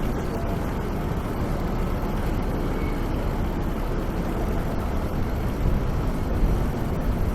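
Steady city street ambience: a continuous low rumble of traffic and general urban noise, with no single event standing out.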